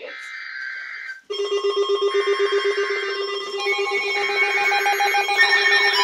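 Weather alert radios going off for a flood warning: after a second of fainter steady tones, a loud, rapidly pulsing low alarm tone starts suddenly, and other alert tones join in layers, with a warbling siren added near the end.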